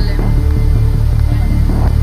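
Background music with a steady, pulsing low beat, over the steady rush of a swollen, fast-flowing stream.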